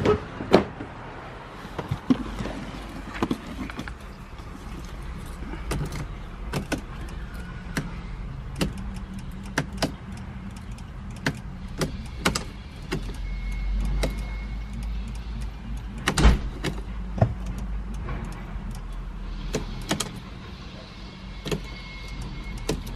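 Handling a 2010 Audi Q7's cabin: a sharp click of the driver's door being opened at the start, then a string of clicks and knocks from the door and interior controls. A low hum comes in about halfway through, with the ignition on.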